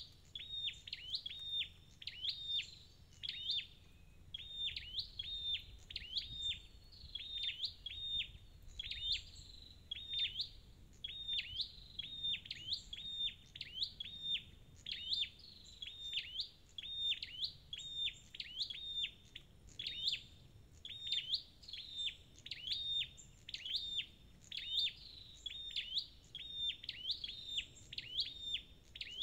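A flowerpecker, the red-headed 'sâu đầu đỏ' kept by Vietnamese bird-keepers, gives a sharp, high chirp over and over, a little more than once a second, with no break.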